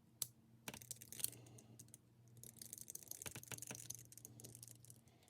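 Scattered small clicks and fine scratchy ticking of a hand driver working a tiny screw out of the motor mounting plate of an Axial SCX24 crawler, over a faint steady hum.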